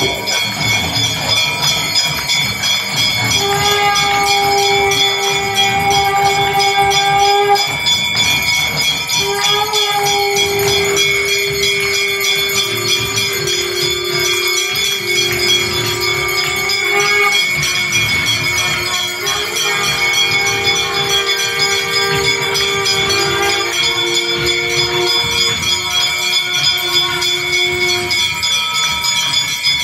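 Brass temple bells rung rapidly and continuously during an aarti, a steady dense ringing that fills the whole stretch. Long held notes change pitch every few seconds over it.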